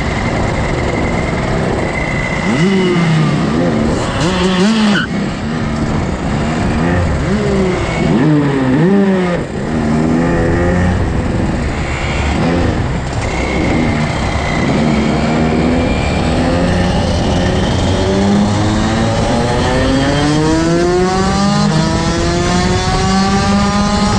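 Rotax DD2 kart's 125 cc two-stroke single-cylinder engine heard onboard at racing speed, its pitch dropping and rising quickly as it brakes and accelerates through a run of corners, then climbing steadily in a long acceleration near the end.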